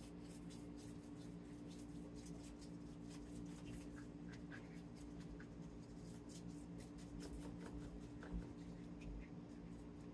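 Melted butter being spread over a sheet of phyllo dough: faint, soft brushing and dabbing clicks, irregular and repeated, over a steady low hum.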